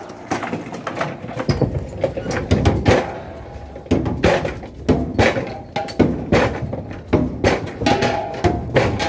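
Empty steel LPG gas cylinders being tossed down and clanging against one another and a steel floor: a fast, irregular run of hollow metallic knocks, some ringing briefly.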